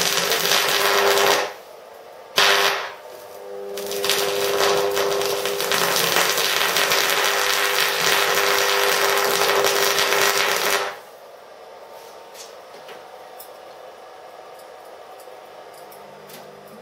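Stick arc welding on a homemade AC welder built from microwave-oven transformers, the arc crackling with a steady buzz while drawing about 60–70 amps. The arc breaks off about a second and a half in, strikes again briefly, burns steadily once more, then stops about 11 seconds in.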